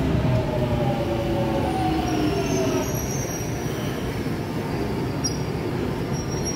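London Underground 1996 Stock Jubilee Line train braking into the platform: an electric whine falls in pitch over the first three seconds as it slows, under a steady rumble of wheels on rail. A high-pitched brake squeal comes in about two seconds in and keeps on, on and off.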